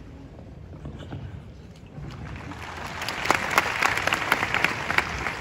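Crowd applauding in an arena, swelling from about two seconds in, with a few sharp claps standing out above the rest.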